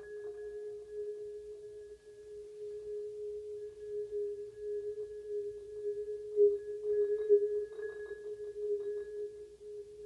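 Musser vibraphone played softly with yarn mallets: one middle-register note rings on at a steady pitch, with a few light strokes a little past halfway.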